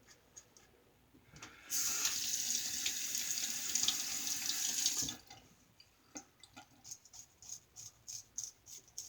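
A faucet runs for about three seconds and shuts off. Then a Star Super Six single-edge safety razor with a GEM blade scrapes across lathered stubble in short, quick strokes, about three a second, with a thin, tinny sound.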